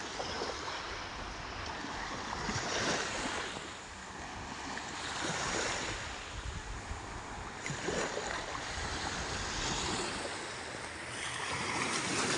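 Small waves washing up on a sandy beach, the surf swelling and easing every two to three seconds, with wind on the microphone.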